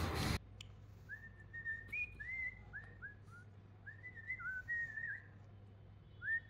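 Faint series of short whistled notes, each about a quarter second long, hopping between a few pitches. They come in two runs with a short pause between, and a third run starts near the end.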